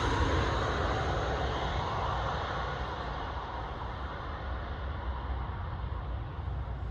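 A landing airliner's jet engine noise fading away after it passes low overhead: a broad rush that dies down steadily.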